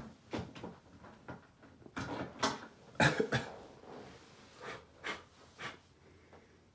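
Small hard parts being handled: a run of irregular clicks, knocks and short scrapes, the loudest about three seconds in.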